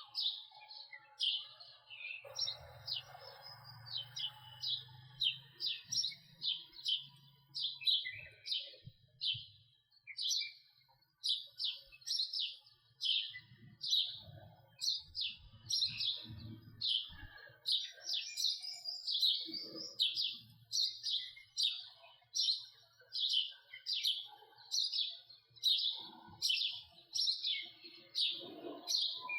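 House sparrow chirping over and over, a steady string of short, sharp chirps at about two a second.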